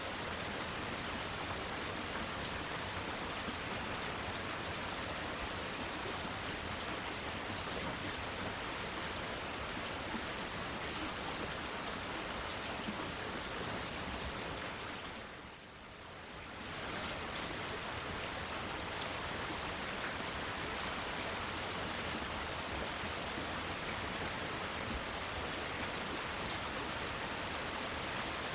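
Steady rain falling, an even hiss of many drops. The sound fades down and back up briefly about halfway through.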